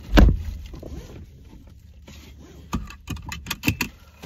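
A dull thump just after the start, then a quiet stretch and a short cluster of crinkles and clicks from a plastic takeout bag being handled near the end.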